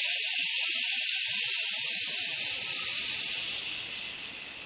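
A long, drawn-out "shhh" breathed out through the teeth: the qigong liver healing sound, held on a single exhale and fading away near the end.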